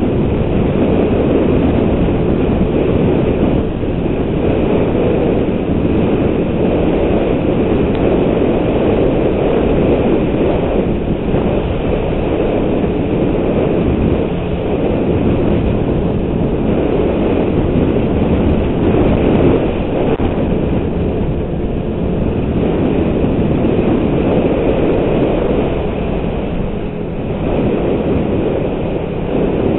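Snowmobile running steadily at speed along a groomed trail: a constant rumble of engine and track.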